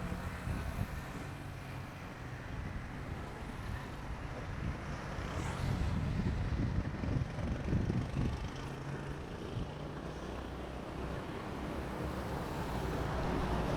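Wind buffeting the microphone of a camera on a bicycle climbing a road: a low, uneven rumble that swells a little around the middle.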